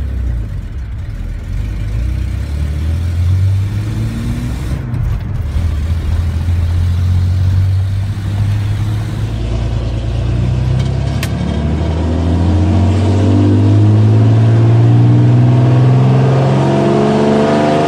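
Ford 300 4.9-litre inline-six pickup engine running under load, heard from inside the cab. The drone is fairly steady at first, then climbs steadily through the second half as the truck accelerates.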